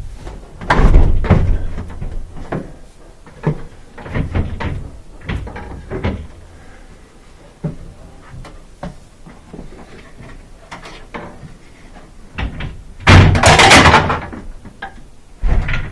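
A clothes dryer cabinet being pulled forward on its rails: scattered knocks and thumps of the metal cabinet, the heaviest about a second in, and a louder scraping stretch about 13 seconds in.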